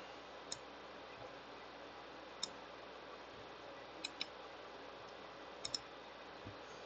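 Computer mouse buttons clicking: two single clicks, then two quick double-clicks, over a faint steady hiss.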